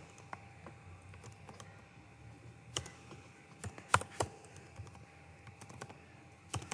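Typing on a computer keyboard: irregular, sparse keystrokes, with a few sharper clicks about three to four seconds in.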